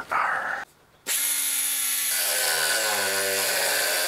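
Die grinder with a small cut-off wheel starting about a second in and cutting through the sheet-steel transmission tunnel of a car. It makes a steady high hiss, and its motor note drops in steps as the disc bites into the metal.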